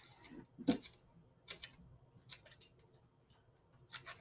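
Small scissors snipping short slits into a paper strip: a series of quick, light snips, several in close pairs, the loudest just under a second in.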